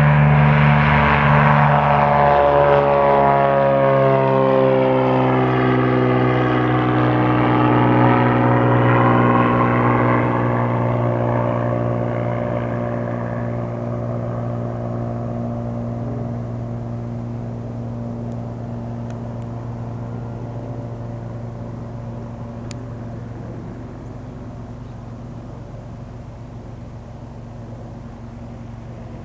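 Cirrus SR22's six-cylinder piston engine and propeller at full takeoff power as the plane lifts off and climbs away: a steady propeller drone whose higher tones slide down in pitch as it passes, then fade steadily with distance.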